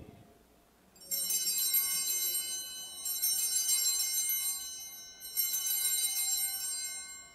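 Altar bells rung three times, each ring a bright cluster of high tones fading over about two seconds. They mark the elevation of the chalice at the consecration.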